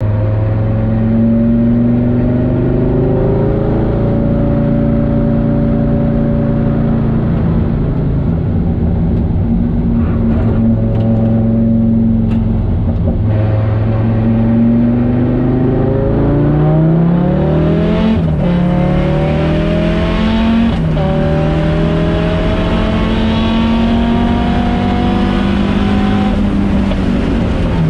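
Audi Sport quattro S1 Group B rally car's turbocharged five-cylinder engine running loud, first at fairly steady revs, then accelerating through the gears, its pitch climbing and dropping back at each shift in the second half.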